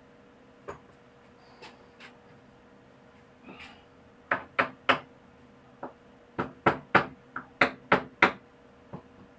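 A run of sharp, hard knocks: a few light ones, then about a dozen loud ones in quick, uneven clusters from about four seconds in.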